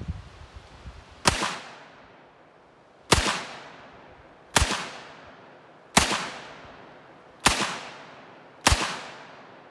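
Six shots from a Smith & Wesson Model 27 revolver chambered in .357 Magnum, fired at an even pace about a second and a half apart. Each sharp crack trails off in a short echo.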